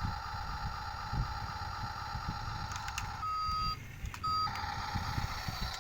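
Two electronic beeps over a steady background hum: a single-pitched beep about half a second long a little past three seconds in, then a shorter one about a second later.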